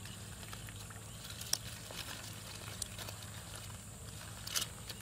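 Wet water hyacinth being pulled and handled on a plastic-sheet fishing net: soft rustling with a few sharp clicks, three of them standing out, over a low steady hum.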